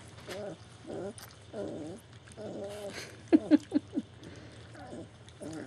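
German Shepherd whining in a string of short whimpers, about one a second, with a quick run of louder, sharper yelps about three and a half seconds in.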